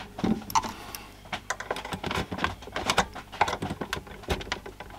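Irregular small clicks and taps of a small screwdriver and fingers working against the plastic case of a 5-inch portable black-and-white TV, probing for hidden screws and clips.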